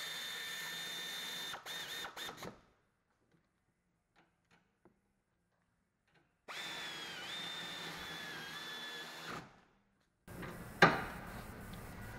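Cordless drill/driver whining as it runs brake bolts down: one steady run followed by a few short blips, then a second run whose pitch sags and wavers as the bolt takes load. A single sharp clack near the end.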